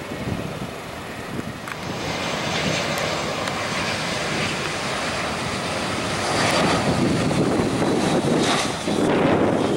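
Airbus A320's jet engines on a landing approach, the engine noise swelling as the airliner passes close about six seconds in, with a high whine that falls slowly in pitch near the end.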